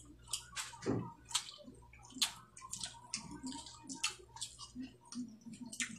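Close, wet chewing and lip-smacking from people eating by hand, a run of short irregular smacks and clicks.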